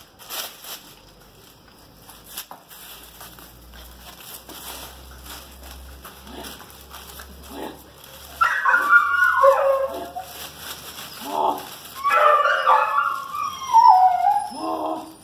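Pit Monster puppies whining and yelping in high, bending cries during tug-of-war play with a broom, starting about eight seconds in; before that only faint scuffling and ticking.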